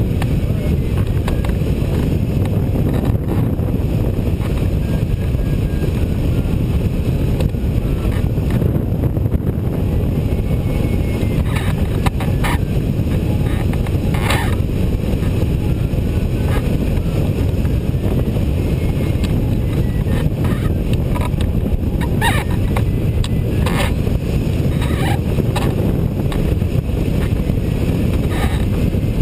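Steady wind rush buffeting the microphone of a rigid-wing hang glider in flight, a loud low rumble, with a few brief clicks in the second half.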